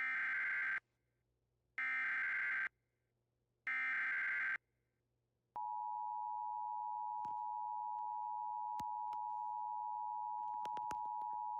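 Emergency Alert System SAME header: three short bursts of warbling two-tone data screech about a second apart. About a second after the last burst, the steady EAS attention signal starts, two tones just under 1 kHz sounded together, and holds on, with a few faint clicks over it.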